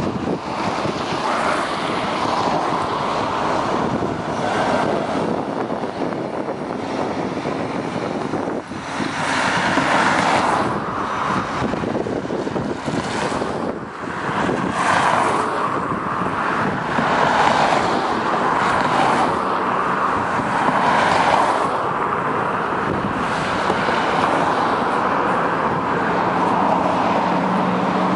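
Road traffic on a bridge: city buses and cars passing one after another, the noise swelling as each goes by. Near the end the low, steady engine hum of an articulated MAN city bus comes in as it draws close.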